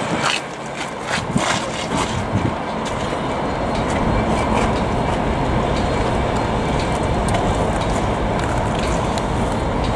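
Class 66 diesel locomotive's EMD two-stroke V12 engine running as the loco moves off slowly, a steady drone that grows louder about three seconds in, with a few clanks in the first couple of seconds.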